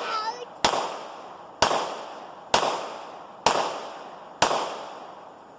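Five 9mm shots from a Glock 19 pistol, fired at a steady pace of about one a second. Each is a sharp crack with a short echo that dies away.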